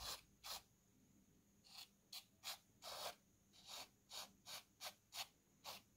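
Thermal paste being scraped off the metal back of an electric scooter controller with a flat card: about a dozen short, faint scraping strokes, roughly two a second.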